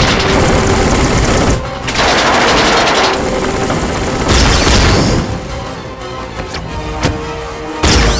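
Cartoon battle sound effects: rapid bursts of gunfire and blasts over dramatic background music. The firing is densest for about the first five seconds, then thins to a few single shots, with a loud blast near the end.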